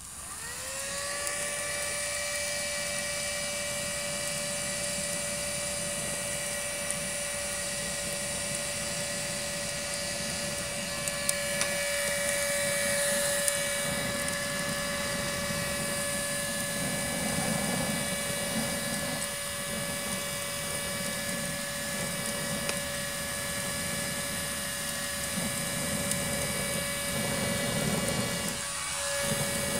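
Electric fireplace bellows, a small motorised blower, spinning up in the first second to a steady high motor whine and blowing a strong rush of air into a cardboard fire. A few faint crackles come from the fire.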